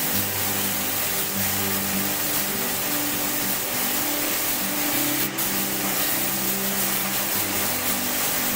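Background music with long held low notes that change every second or so, over a steady hiss. The music briefly drops out about five seconds in.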